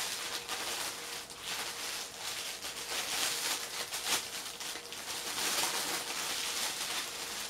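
Clear plastic wrapping crinkling and rustling in continuous irregular crackles as hands pull it off a long bayonet blade.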